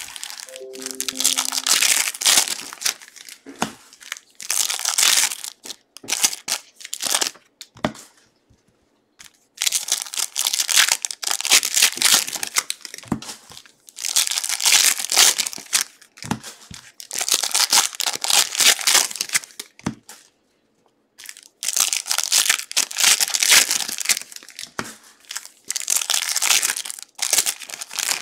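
Plastic wrappers of 2022 Prizm No Huddle football card packs crinkling and tearing as they are ripped open and handled, in bursts of a few seconds separated by short pauses.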